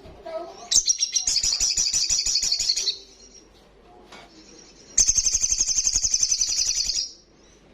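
Little spiderhunter (sogok ontong) calling in two long bursts of rapid, high chattering notes, about a dozen a second. Each burst lasts about two seconds, with a short pause between them.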